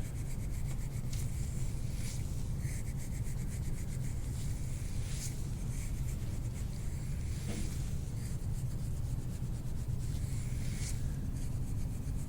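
Soft, scratchy rubbing of hands working over skin, hair and cloth during a massage, over a steady low rumble.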